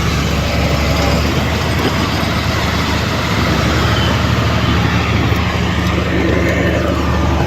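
Diesel engine of heavy earthmoving machinery running steadily with a low, even drone.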